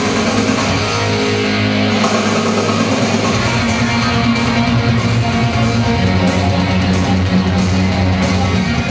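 Rock music with electric guitar and a steady bass line.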